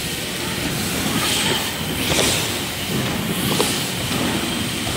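BMX bike tyres rolling over the plywood ramps of a skatepark: a steady rumble from several bikes riding in a line, swelling slightly about two seconds in.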